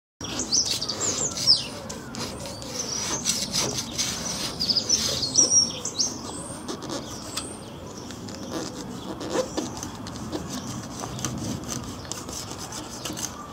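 Metal scraper scraping old sealant out of a stainless steel pond's corner joint, a continuous rough scratching made of many short strokes. Birds chirp high above it through the first half.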